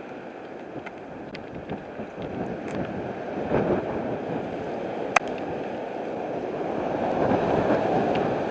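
Strong gusting wind buffeting the microphone: a rushing noise that builds louder in the second half, with a few sharp ticks, the loudest about five seconds in.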